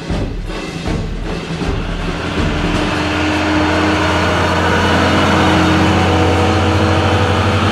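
Lorry engine sound effect: a truck engine running steadily as the lorries drive away, getting louder over the first few seconds.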